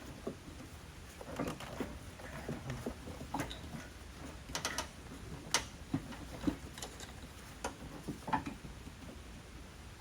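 Irregular light clicks, taps and knocks of parts and hand tools being handled during work in a car's engine bay, coming singly and in small clusters.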